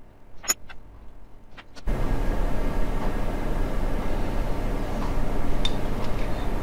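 A few light clicks and clinks of a metal spoon pressing filling into a raw bell pepper. About two seconds in, the sound cuts abruptly to a steady hum and hiss that lasts to the end.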